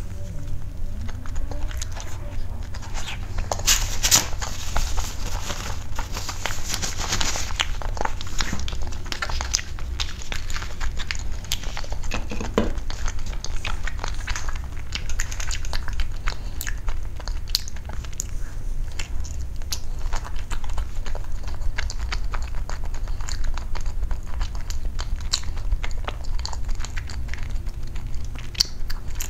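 Close-miked eating of soft pastel-coloured rolls: biting and chewing, with many small wet clicks and smacks scattered throughout, over a steady low hum.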